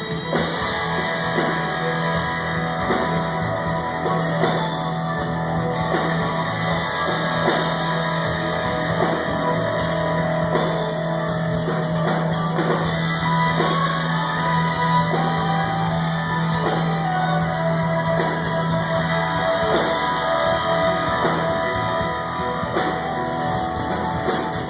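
Rock music with guitar and drum kit, a steady beat throughout, stopping abruptly right at the end.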